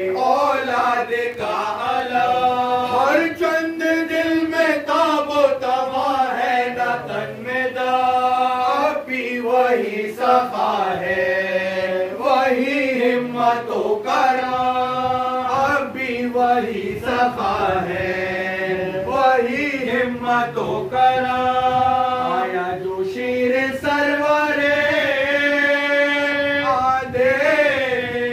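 Men's voices chanting a noha, a Shia mourning elegy, in long held melodic phrases that rise and fall, with no instruments.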